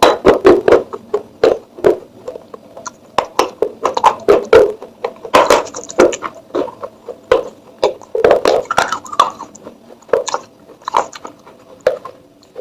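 Dry clay pot pieces crunching and crumbling: an irregular string of sharp cracks and crackles, several a second.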